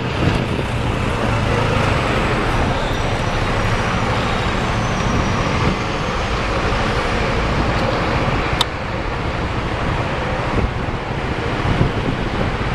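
Road traffic heard from a moving vehicle: steady engine rumble and tyre noise, with a double-decker bus passing close. A single sharp click about two-thirds of the way through.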